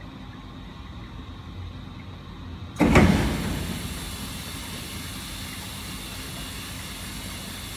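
Diesel particulate filter cleaning machine flushing a blocked filter, with water running through it and a low steady hum. About three seconds in, a sudden loud blast drives spray across the cabinet, and a steady hiss of spray follows.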